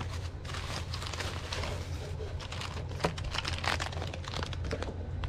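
Plastic packaging (bubble wrap and plastic bags) crinkling and rustling as a parcel is unpacked by hand, with cardboard being handled and one sharper tap about three seconds in.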